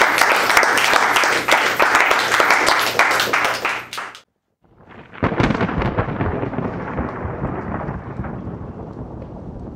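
Audience applauding, cut off abruptly about four seconds in. After a brief silence, a low rumble over a steady hiss comes in and slowly fades.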